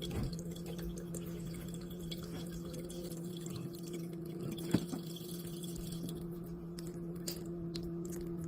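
Faint water dripping and trickling over a steady low hum, with a few soft ticks, the clearest a little after the middle.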